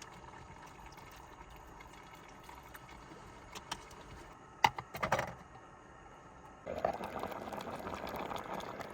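A pot of jambalaya bubbling on a camp stove, with a few sharp clinks of a spork against the pot about halfway, then louder steady stirring of the thick rice mixture to keep it from sticking to the bottom and burning.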